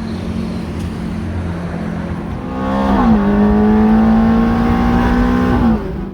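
Ferrari engine under hard acceleration. Its pitch dips with a gear change about three seconds in, then it pulls steadily at high revs before cutting off abruptly near the end.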